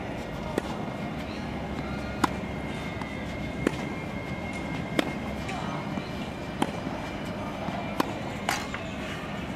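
Tennis ball being struck by racquets and bouncing on a hard court during a baseline rally: a series of sharp pops about every one and a half seconds.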